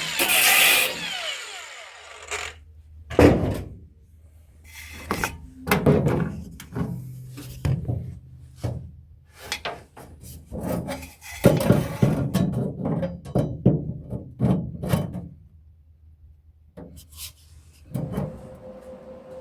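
Hand work on car sheet metal: a power tool's whine stops right at the start, then irregular knocks, scrapes and clatter of tools against the metal, with a short lull about three quarters of the way through.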